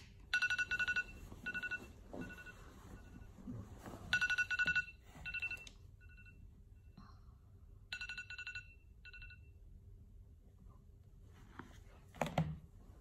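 iPhone alarm ringing: bursts of fast electronic beeping at two high pitches, in groups of uneven length, stopping about nine and a half seconds in. Near the end there is a short rustle or thump of bedding.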